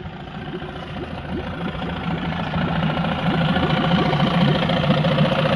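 Evinrude 15 hp two-stroke outboard motor idling steadily, now holding its idle after an adjustment of the carburetor's idle mixture screw. It grows louder over the first few seconds, then holds steady.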